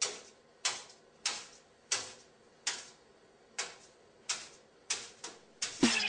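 A series of sharp single taps on a hard surface, about one every two-thirds of a second and slightly irregular: a parrot stamping its feet on a countertop. Electronic dance music with a strong beat comes in near the end.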